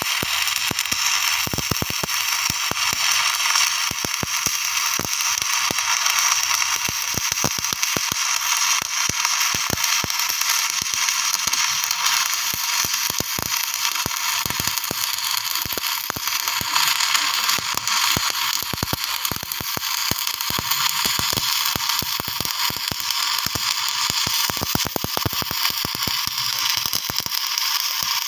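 Electric arc welding: a steady crackle and sputter of the arc, with dense irregular pops and no pause.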